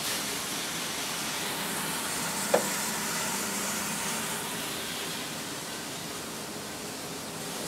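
Freshly roasted coffee beans pouring out of a Probat drum roaster's door into its cooling tray, a steady rushing hiss: the batch being dropped once it has reached the wanted colour. One brief sharp sound comes about two and a half seconds in.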